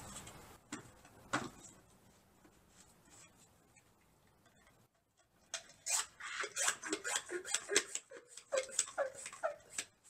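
Hand pump of a Chapin 1-gallon plastic garden sprayer being worked to pressurize it: a run of sharp squeaky clicks, about three a second, starting about halfway through, after a couple of isolated clicks near the start.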